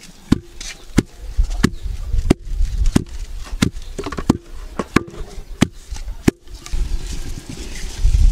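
A pestle pounding crushed peanuts in a mortar, with an even stroke about every two-thirds of a second, ten strokes in all. The pounding stops about six seconds in, and a low, even noise follows.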